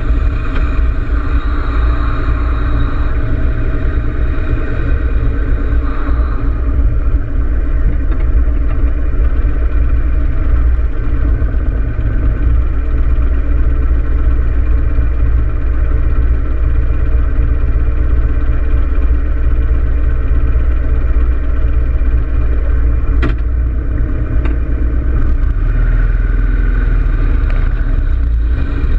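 Harley-Davidson Road King Classic's V-twin engine running steadily while the motorcycle cruises, heard close up from a camera mounted on the bike, with a strong low rumble. A few brief clicks come near the end.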